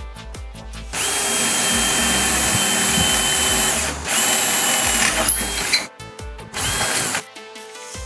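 Cordless lithium electric drill running in bursts: a steady motor whine of about three seconds starting a second in, a brief stop, another run of under two seconds, then a short burst near the end. Background music with a steady beat plays underneath.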